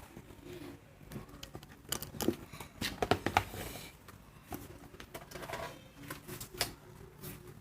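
Scattered light clicks and knocks of small hard objects being handled, loudest about two to three and a half seconds in.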